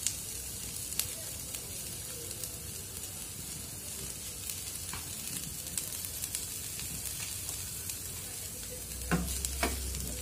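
Mixed vegetables sizzling in oil in a frying pan, a steady hiss with scattered small pops. About nine seconds in, a wooden spatula starts stirring, knocking and scraping against the pan.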